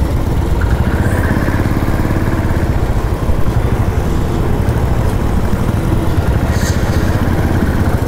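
Motorcycle engine running steadily while under way, heard from on the bike itself.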